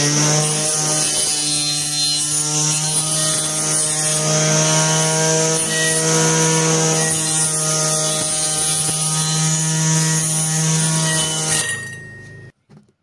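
A 775 DC motor spins the saw blade of a homemade sliding saw with no load, giving a steady whine at one pitch. Near the end it is switched off and the sound dies away within about a second.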